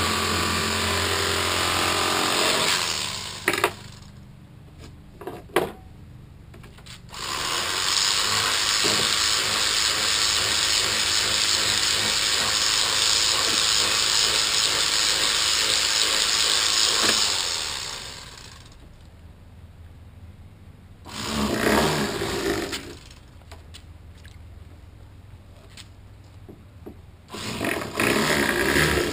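Electric fillet knife motor buzzing in separate runs as it cuts catfish fillets: a short run at the start, a long run of about nine seconds in the middle, then two short runs, with quiet gaps and a few clicks between.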